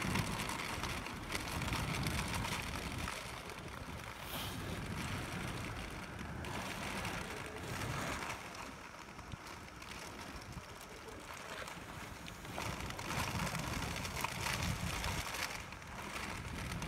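Tropical-storm wind and heavy rain: a steady rushing noise that rises and falls in gusts, swelling about thirteen seconds in.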